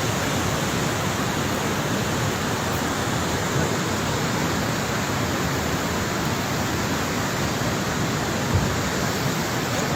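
Floodwater of a swollen river rushing steadily, a dense, even noise without pauses.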